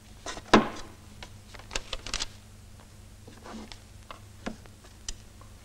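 Paper being handled on a table: rustling sheets and a scattering of short knocks and clicks as things are moved and set down. The loudest is a sharp knock about half a second in, with a quick run of rustles and taps around two seconds.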